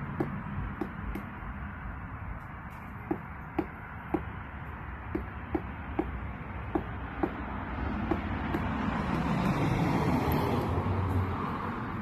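Woodpecker pecking at a tree trunk: about a dozen single sharp knocks, mostly about half a second apart with short pauses between runs, over a steady low rumble that swells near the end.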